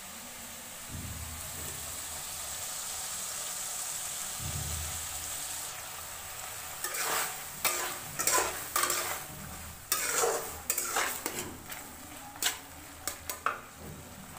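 Steel spatula stirring and scraping potato curry in a steel kadai: a steady hiss at first, then from about halfway a quick, irregular series of scrapes and clinks of metal on metal.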